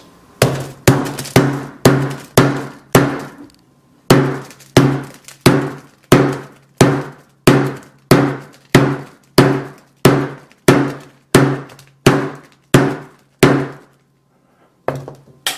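Hammer blows on the aluminium back of an iPhone 6s, about two dozen strikes at roughly two a second, each with a short ringing decay. There is a brief pause about three seconds in, and the blows stop near the end.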